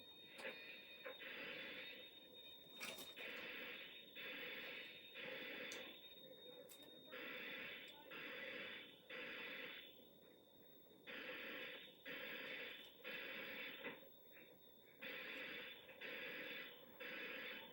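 Hotel fire alarm horns sounding the temporal-three evacuation signal: three short blasts, a pause, then again, repeating about every four seconds.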